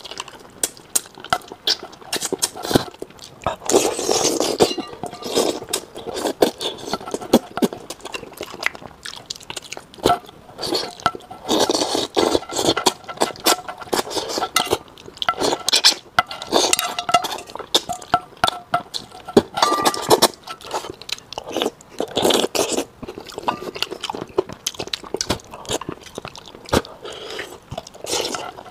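Close-miked eating sounds: wet chewing and lip-smacking of braised fish, thick with sharp clicks, now and then with chopsticks clinking against a metal bowl.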